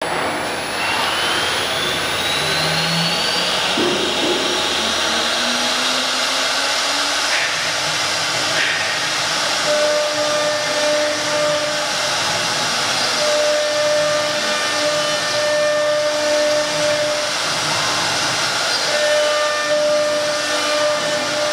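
CIMTECH 1325 CNC wood router running: the spindle spins up with a rising whine over the first few seconds, then runs with a steady noisy hiss as it cuts the wooden sheet. Steady tones come and go from about ten seconds in as the gantry and spindle head move over the board.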